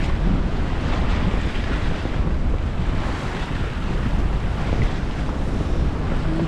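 Wind buffeting the microphone and water rushing along the hull of a sailboat under way under sail, a steady noise heaviest in the low end.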